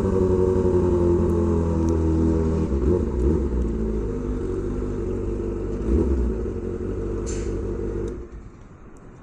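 Kawasaki Ninja ZX-25R's 250 cc inline-four running at low revs through an SC-Project exhaust. It gives a couple of short throttle blips, then shuts off about eight seconds in.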